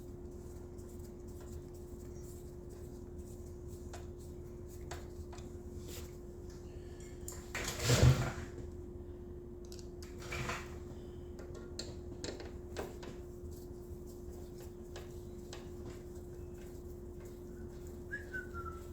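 Small metallic clicks and clatter of screws and a screwdriver being handled while fitting a motorcycle headlight, with a louder clatter about eight seconds in, over a steady hum. A short falling whistled note near the end.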